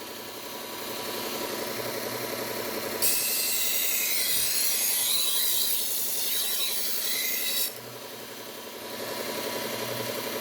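Bucktool slow-speed belt grinder running steadily, with a knife blade pressed to the moving abrasive belt from about three seconds in for roughly four and a half seconds, a loud hissing grind that stops abruptly.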